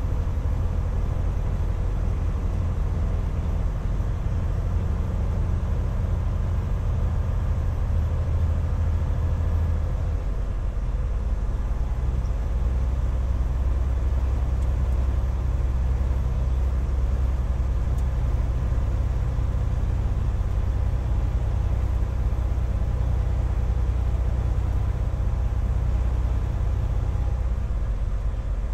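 Semi truck's engine and road noise heard from inside the cab while cruising at about 45 mph: a steady low rumble.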